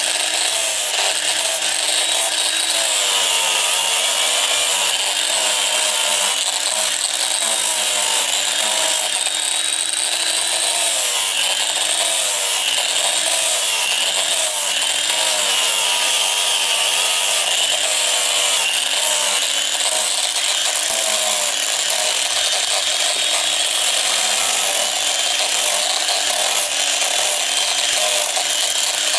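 Electric angle grinder with a sanding pad running steadily and sanding a leaf-spring steel throwing-knife blade, a high grinding hiss over the motor's whine, whose pitch wavers up and down as the pad bears on the steel.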